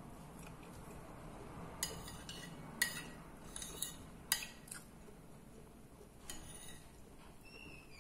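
Metal fork clinking and scraping against a plate while picking up food: a run of sharp clinks between about two and five seconds in, and one more a little later.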